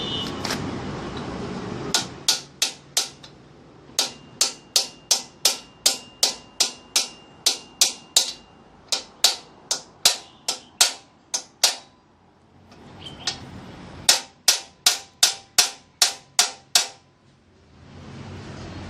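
Sharp metallic taps, evenly spaced at about two to three a second, in three runs with pauses between: a short run of four, a long run of about twenty, then about nine.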